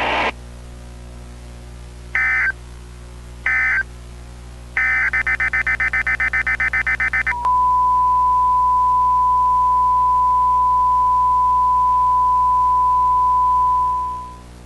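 Emergency Alert System end-of-message: short warbling digital data bursts, two brief ones then a longer choppy one, followed by a single steady electronic tone that holds for about six seconds and fades out near the end.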